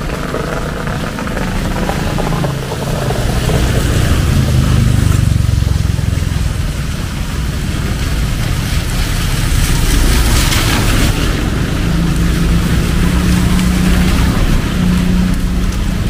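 City street traffic: vehicle engines running and passing. One vehicle passes loudly about ten seconds in, and a steady engine hum sets in about two seconds later.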